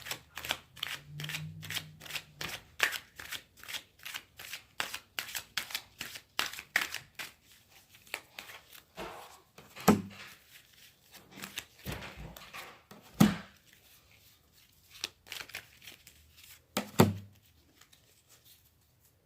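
A deck of tarot cards being shuffled by hand: a rapid run of card flicks for the first several seconds, then the sound thins out to a few louder, separate knocks about 10, 13 and 17 seconds in.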